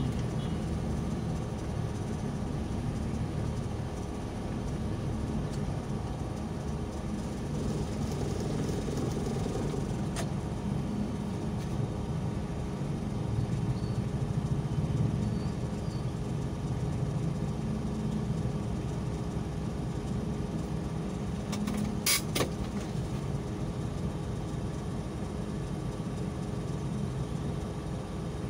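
Steady low rumble of a car's engine and road noise heard from inside the cabin while crawling in slow city traffic. A brief cluster of sharp clicks about three-quarters of the way through.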